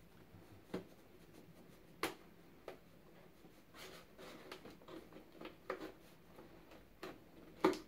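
Fingers and fingernails picking and scraping at the sticker seal of a small cardboard processor box: faint scratches broken by scattered sharp clicks, one about two seconds in and the loudest near the end.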